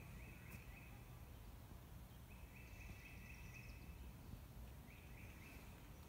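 A songbird singing faintly: three short phrases of quickly repeated notes, a second or so apart, over a low rumble.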